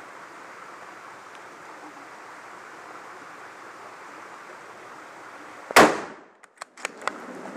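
A single hunting rifle shot about two seconds before the end, sharp and very loud with a short echo, followed by a few fainter clicks. Before it the steady rush of the mountain stream below. The shooter says the bullet ricocheted.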